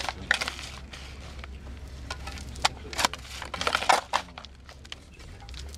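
A shovel digging into loose soil and earth being tipped into a grave: a run of irregular crunching scrapes, thickest a few seconds in.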